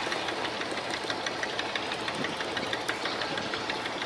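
Komatsu diesel engine of a 75-ton wooden rice boat running under way, a steady, rapid, even clatter.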